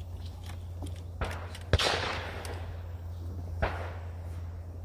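A shotgun fires at a clay target about two seconds in: a sharp report with a long echo trailing off. A softer knock comes just before it, and a second, weaker shot about two seconds later.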